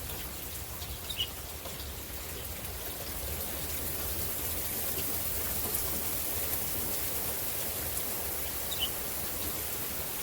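Steady rain falling, an even continuous hiss, with two short high chirps, about a second in and near the end.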